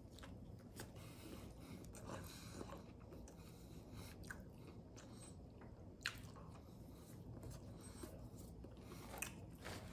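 A person biting into and chewing a fried chicken sandwich, faint, with a few soft mouth clicks along the way.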